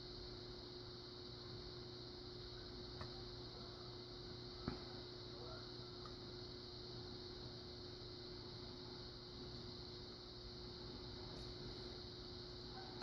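A few faint clicks of a dimple pick working the pins inside a Kenaurd pin-in-pin lock under tension, the clearest a little under five seconds in, over a steady low hum.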